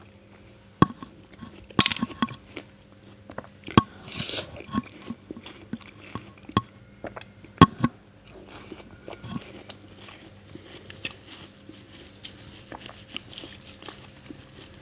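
Close-miked bites into juicy watermelon: crisp crunches with wet smacking, several sharp bites in the first half, then softer, steady chewing.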